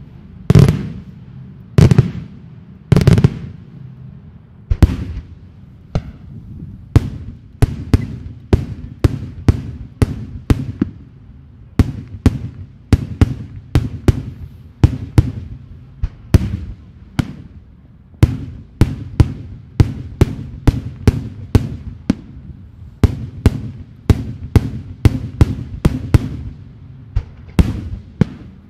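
Daytime aerial fireworks shells bursting as a rapid series of sharp bangs, each with a low rumbling tail, about two a second. The loudest bangs come in the first few seconds.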